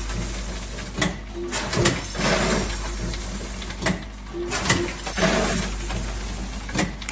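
Ilapak bagging machine running through its bagging cycle about every three seconds. Each cycle brings a quick run of sharp clacks, then a short rushing noise, over a steady low machine hum. Two cycles are heard.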